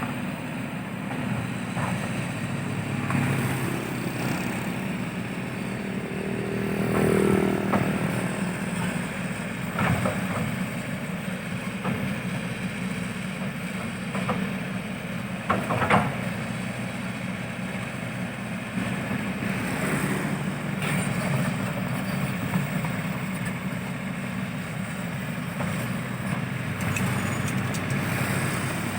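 Excavator's diesel engine running steadily while digging soil. A brief swell comes about seven seconds in, and a few sharp knocks follow, the loudest about sixteen seconds in.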